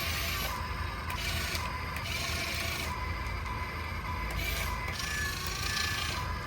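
Small electric motors and plastic gearboxes of a mini RC excavator whirring and grinding, with a thin motor whine that starts and stops every second or so as the arm and bucket move.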